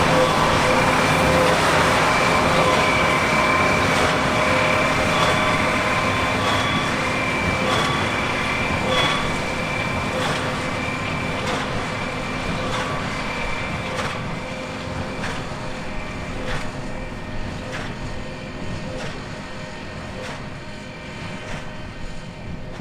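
Massey Ferguson 8740S tractor and Krone BigPack large square baler working: a steady mechanical whine with a regular knock about once a second, typical of the baler's plunger strokes. The whole sound fades steadily as the machine moves away.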